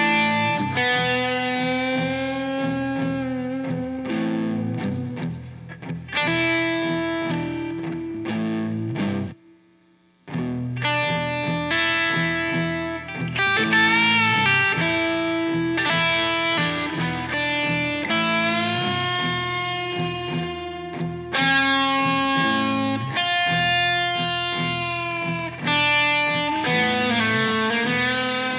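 Electric guitar played in blues lead lines, with long held and bent notes. The playing stops for about a second some nine seconds in, then picks up again.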